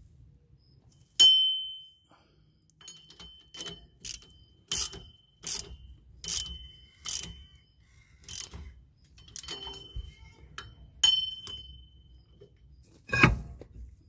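Torque wrench tightening the 14 mm hub-to-backing-plate bolts: a series of sharp metal clicks, several with a short ringing ping, as the bolts are brought to 59 ft-lbs. A louder thump comes near the end.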